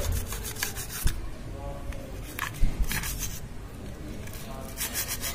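Brush bristles scrubbing carbon deposits off a TV motherboard around its AV input jacks: a few scattered strokes, then a fast, even run of strokes near the end.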